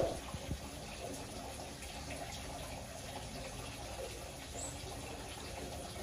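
Faint wet sucking and small clicks of a baby monkey drinking milk from a plastic feeding bottle, over a low steady hiss.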